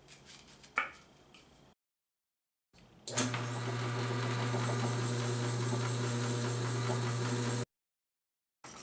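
Electric bowling ball spinner running with a steady hum while a hand-held cup with an abrasive pad sands the turning ball, adding a rushing scuff. It starts about three seconds in and cuts off suddenly after about four and a half seconds. Before it, light handling with a single click.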